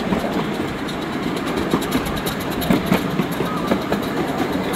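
Miniature train passenger cars rolling along the track: a steady rumble with wheels clacking and rattling in irregular knocks.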